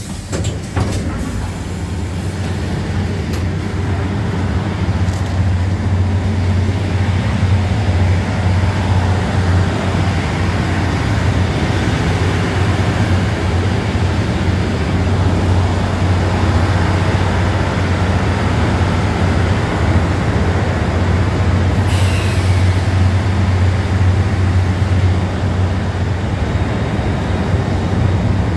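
A train's steady low rumble beside the platform, growing louder over the first few seconds and then holding. Late on there is one short, sharp hiss.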